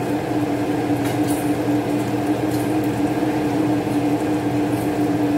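Thick General Tso's sauce bubbling in a frying pan on an electric stove, with faint pops from the bubbles, over a steady hum.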